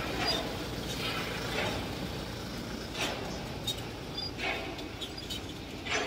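Ambulance van driving away over a dirt track: a steady low engine and tyre rumble, with a few brief sharper sounds over it.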